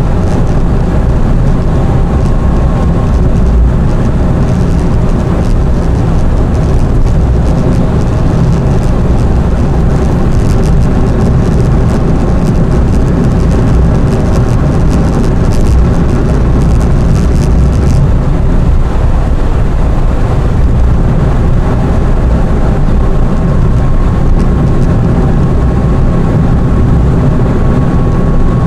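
A car driving along a road: a loud, steady low rumble of engine and tyre noise.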